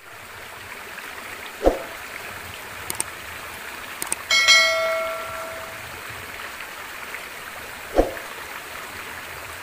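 Sound effects of an animated subscribe intro over steady rushing stream water: a short thump about 1.7 seconds in, mouse-click sounds near 3 and 4 seconds, then a bell-like notification chime that rings and fades over about a second and a half. A second thump comes near the end.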